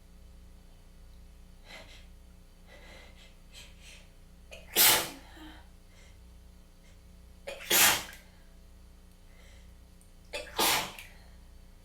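A person sneezing three times, about three seconds apart, each sneeze led by a short breath in: a sneezing fit from a tickly, congested nose.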